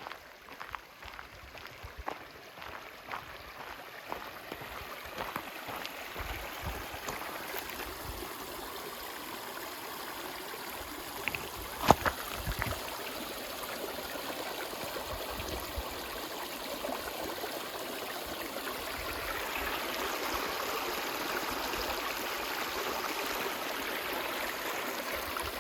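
Seasonal creek flowing over rocks: a steady rushing and gurgling that grows gradually louder. A single sharp knock about twelve seconds in is the loudest moment.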